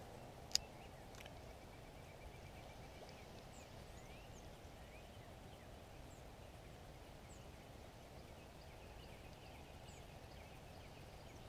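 Quiet pondside ambience: faint, scattered high bird chirps over a low, even background hiss, with one sharp click about half a second in.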